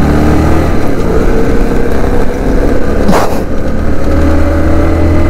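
Motorcycle engine running steadily under way, its pitch creeping up slightly as the bike gathers a little speed. A brief rush of noise comes about three seconds in.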